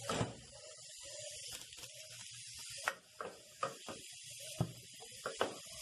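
Chopped banana-stem pieces sautéing in hot oil and seasonings in a steel pot, a steady sizzle, with several sharp knocks of a wooden spoon against the pot as they are stirred in.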